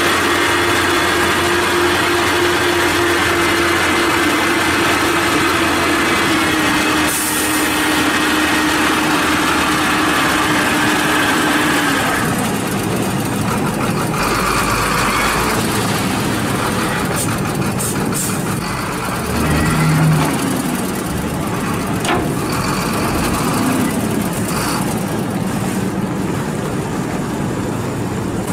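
Howo three-axle dump truck's diesel engine running at raised, steady revs while the bed is tipped and the load of sand pours out. About twelve seconds in the steady drone drops away and the engine runs lower and unevenly, with a few knocks, as the truck moves off with the empty bed still raised.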